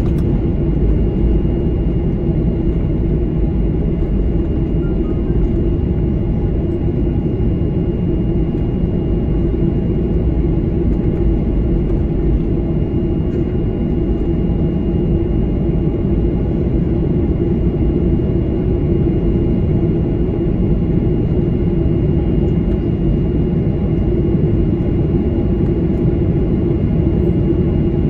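Cabin noise of a Boeing 737-800 taxiing on the ground: a steady low rumble with its CFM56-7B engines at idle, and a steady high whine above it.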